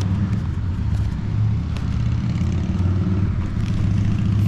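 Harley-Davidson motorcycle engine running nearby with a low, steady rumble that grows gradually louder.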